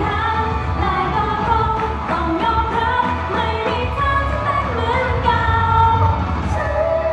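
Live Thai idol-pop song over a concert PA: female voices singing into handheld microphones over backing music with a steady beat and heavy bass.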